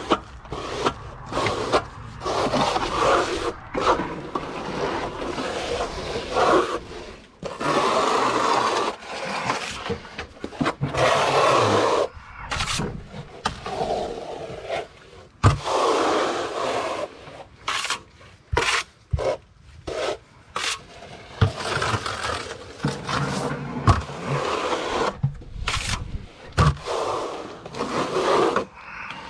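Trowel scraping and spreading base coat over external wall insulation boards, in repeated strokes of about one to two seconds with short gaps, with a few sharp knocks.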